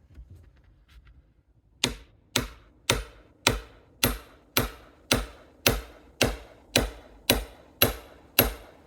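A hand tool swung repeatedly against a fallen tree's log in a chopping or hacking motion: sharp, evenly spaced blows about two a second, each with a brief metallic ring, starting about two seconds in. The blows make no headway into the wood.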